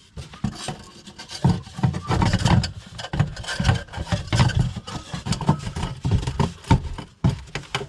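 Irregular rubbing, scraping and knocking as the flexible hot-air hose of a diesel heater is handled and pulled into place.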